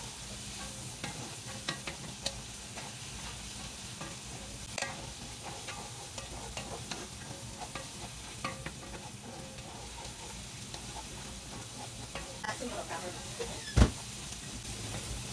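Minced garlic, diced onions and butter sizzling in a skillet as they sauté until soft, stirred with a wooden utensil that scrapes and clicks against the pan. One sharp knock near the end.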